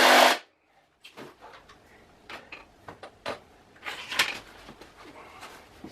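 Cordless drill driving a screw, cutting off abruptly just after the start; then scattered light clicks and knocks of tools and wood being handled.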